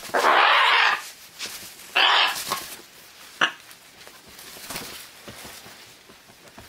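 Scarlet macaw giving two harsh squawks, the first nearly a second long and the second shorter about two seconds in, followed by a single sharp click and softer scattered clicks.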